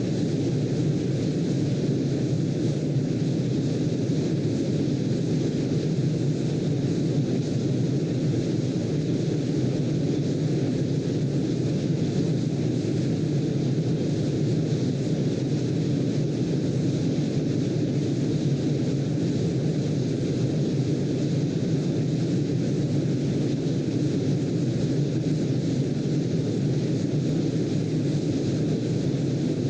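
Steady, even low noise of a sleep-sound track, brown noise with no rise or fall.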